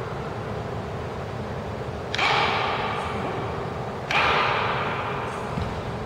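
Two sharp clacks of wooden bokken striking each other, about two seconds apart, each ringing out in a large reverberant hall, over a steady low hum of the hall.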